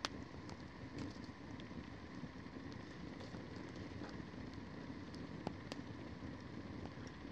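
Campfire burning, with faint irregular crackles and pops over a steady hiss.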